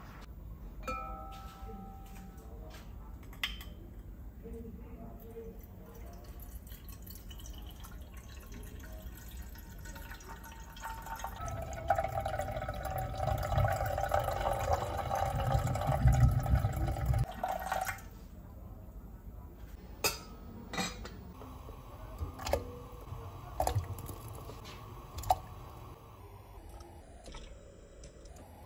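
Water poured in a steady stream into a glass pot for about six seconds, then several short plops and knocks as chunks of food are dropped into the water.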